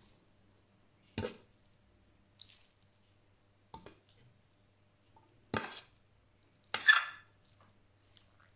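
A metal spoon knocking and clinking against cookware while food is stirred: about five separate sharp knocks a second or more apart, the loudest near the end. A faint steady hum runs underneath.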